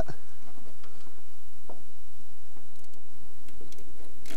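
Scattered light metallic ticks and clicks of a wrench working the nuts that hold an oil can holder bracket to a jeep's firewall, with a sharper click near the end.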